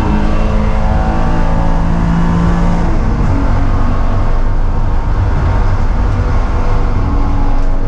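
BMW E36 M3's straight-six engine accelerating hard down a straight, heard from inside the stripped, caged cabin with wind and road noise. The engine note climbs for the first three seconds, then changes and holds steadier as the speed levels off.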